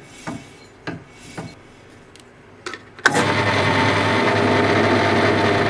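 A few light knocks, then the Axminster ATDP13B bench pillar drill's induction motor is switched on about three seconds in and runs steadily, spinning the chuck and test bar.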